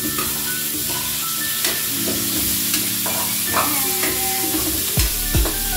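Whole shrimp sizzling and frying in a hot steel wok, with a metal spoon clinking against the pan a few times as they are added and turned.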